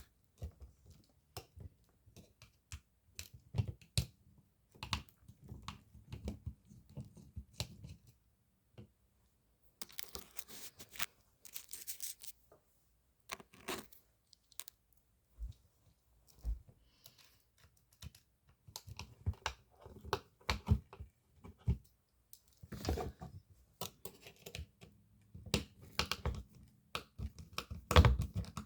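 Irregular clicks, taps and light scraping of small hard objects being handled close to the microphone, with a stretch of tearing, crinkling rustle about ten to twelve seconds in.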